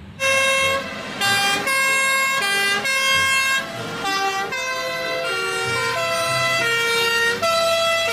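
Battery-powered toy fire truck's electronic sound unit playing a buzzy, beeping melody of stepped notes, about two to three a second.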